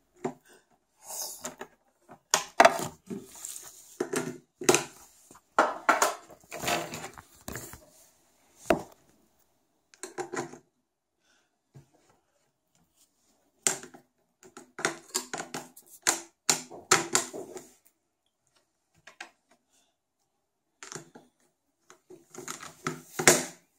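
Plastic felt-tip markers clicking and clattering as they are pushed one by one into their box, in irregular clusters of sharp knocks with short pauses between.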